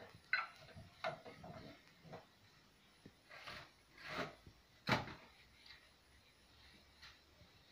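Intermittent knocks and short scrapes from a hand-operated screw-press paper plate machine being worked and its pressed plates handled, with the sharpest knock about five seconds in.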